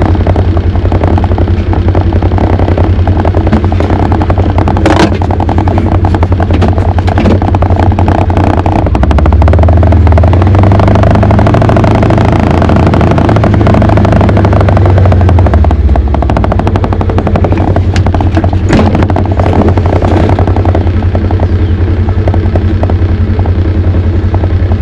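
Vehicle engine running with a rapid, even low pulsing. The engine note deepens and grows louder for several seconds in the middle, then settles back.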